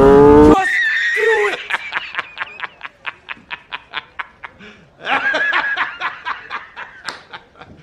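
A motorcycle engine revving, cut off abruptly about half a second in, then a man's hearty laughter: a rapid string of short "ha" pulses, a brief break around five seconds in, then another burst of laughing.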